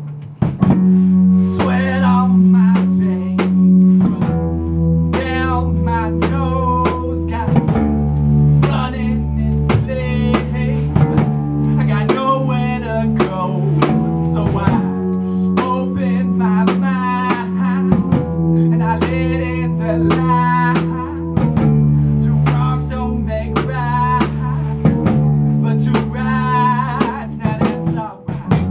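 A small band playing a song live: a man sings lead into a microphone over electric guitar and a drum kit.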